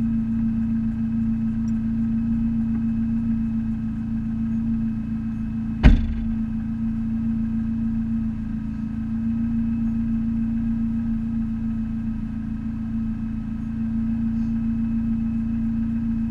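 Neon race car's four-cylinder engine idling steadily, heard from inside the cabin of the stationary car. A single sharp knock stands out about six seconds in.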